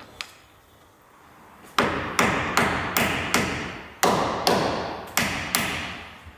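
Hammer blows on metal at the bus's front end: about nine sharp strikes over roughly four seconds, each ringing briefly, beginning a little under two seconds in.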